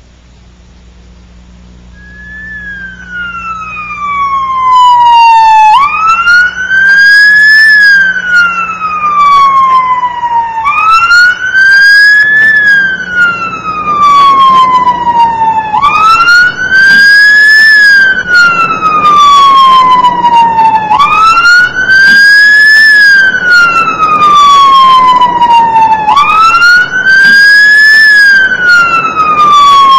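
Ambulance siren wailing, its pitch rising then sliding slowly down in a repeating cycle of about five seconds. It swells in from faint over the first few seconds, as if approaching, then holds loud.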